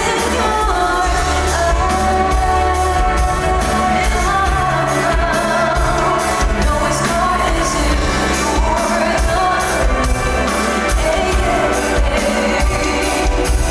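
A woman singing a pop ballad live over loud amplified backing music with a steady drumbeat, heard through a large hall's PA.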